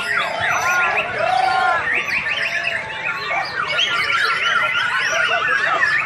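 White-rumped shama (murai batu) singing a loud, varied song of rapid whistled notes and sweeping up-and-down glides.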